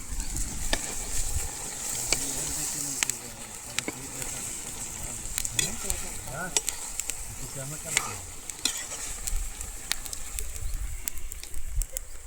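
Goat offal sizzling as it fries in a pan, with a steady hiss and scattered sharp clicks and scrapes as it is stirred against the pan.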